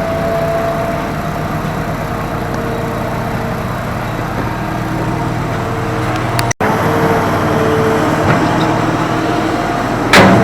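Excavator's diesel engine running steadily, with a sudden brief dropout about two-thirds of the way in and a loud knock near the end.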